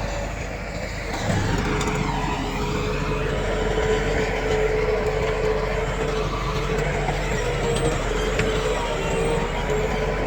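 Diesel engine of heavy earthmoving machinery running steadily with a held whine. It eases off briefly just after the start and picks up again about a second in.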